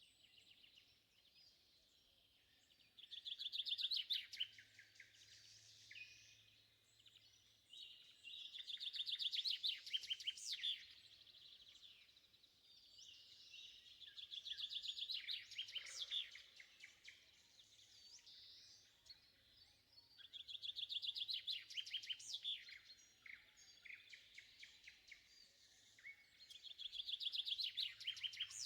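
Dawn birdsong from a shrike and a nightingale among other songbirds: loud phrases of rapid repeated notes come about every six seconds, with quieter bird notes between them.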